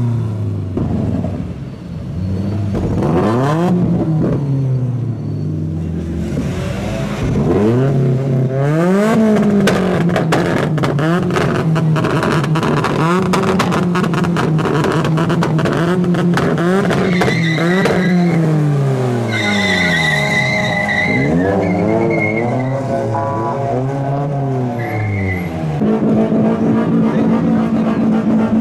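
Car engine revved hard again and again, its pitch climbing and falling, held high for several seconds at a time. Tyres squeal in the later part as thick tyre smoke builds: a burnout.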